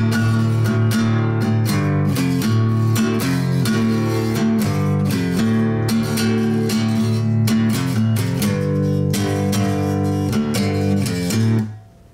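Acoustic guitar strummed in a steady rhythm, playing the chords of a blues song without singing, and cutting off just before the end.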